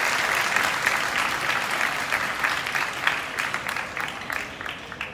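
Spectators in the stands applauding a point just won in a table tennis match: dense clapping that thins out and fades toward the end.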